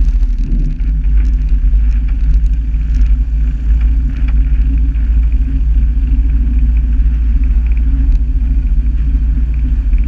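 Evektor EV-97 Eurostar light aircraft's engine running at low taxi power as the plane turns on grass: a steady low drone, with heavy wind rumble on the microphone.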